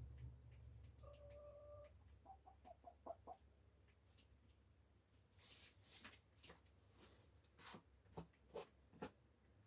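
Backyard hens clucking faintly: one drawn-out call about a second in, then a quick run of short clucks, followed by scattered sharp clicks and taps.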